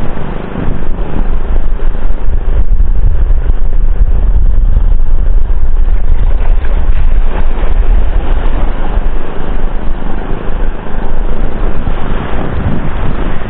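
Wind buffeting the microphone: a loud, fluctuating rumble, heaviest in the lows, that eases near the end.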